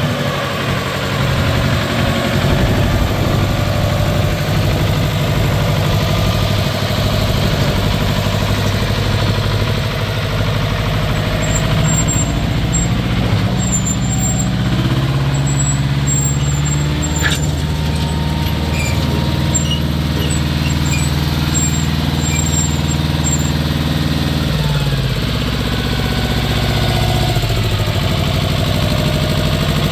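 Jinma 20 hp four-wheel-drive tractor's diesel engine running steadily. Its speed rises about a third of the way in and drops back a little after two-thirds, with faint high squeaks in the middle stretch.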